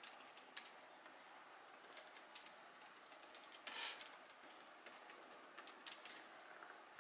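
Fingers typing on a laptop keyboard: quiet, irregular key clicks, with one louder clatter a little before four seconds in.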